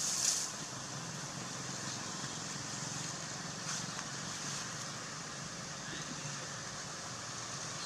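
Steady outdoor background noise: a low hum with a hiss over it, and a brief rustle right at the start.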